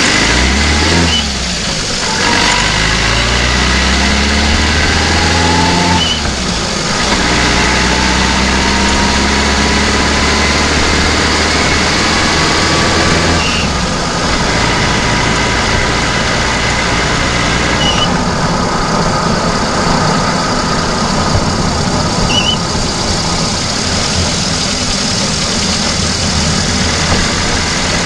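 VAZ-2109's four-cylinder petrol engine heard from inside the engine bay while the car drives. Its pitch climbs over the first few seconds as the car accelerates, drops about six and again about fourteen seconds in, and runs steadier between and after.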